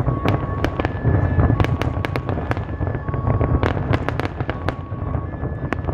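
Fireworks finale barrage: rapid overlapping bangs and crackles over a continuous low rumble, with short steady tones sounding now and then between the bursts.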